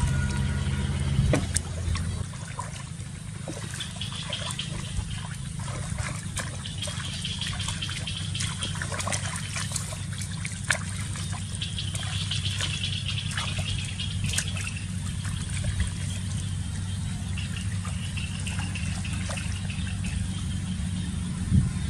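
Shallow water splashing and trickling irregularly as it is scooped and thrown by hand, over a steady low hum.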